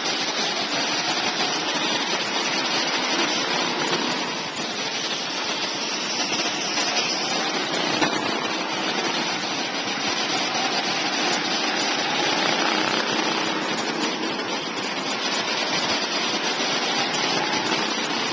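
Go-kart engines running on the track, a steady dense drone that stays at the same level throughout.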